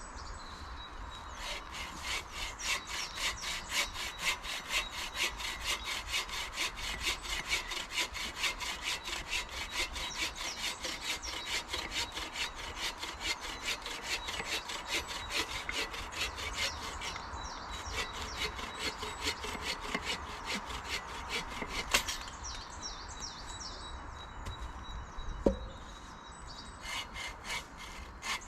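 Hand saw cutting through wood in quick, even back-and-forth strokes, stopping briefly twice, with a single loud knock in the second pause. Birds chirp faintly in the gaps.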